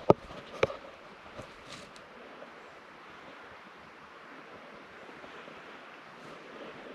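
Steady wind-like hiss of outdoor air, with two sharp clicks in the first second and a few fainter ticks after them.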